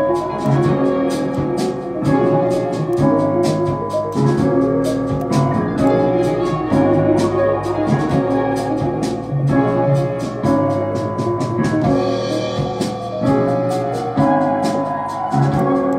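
A beat in progress playing back from the DAW: sustained chords over drums, with a fast, steady run of hi-hat ticks.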